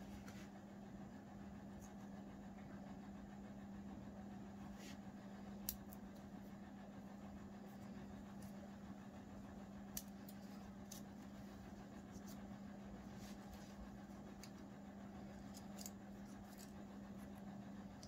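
Faint handling of a coiled Apple Lightning-to-USB cable in knitted gloves: scattered small clicks and rustles, with two sharper clicks about a third of the way in and just past halfway, over a steady low hum.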